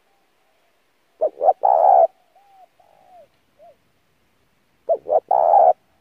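Spotted dove cooing: two calls about four seconds apart, each two quick short notes and then a longer, louder coo. Faint, short, bending notes come between the two calls.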